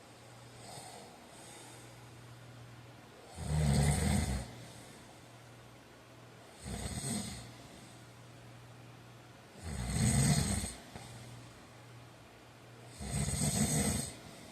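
A sleeping man snoring in a steady rhythm: four loud, rasping snores about three seconds apart, the second one weaker, with a fainter breath near the start.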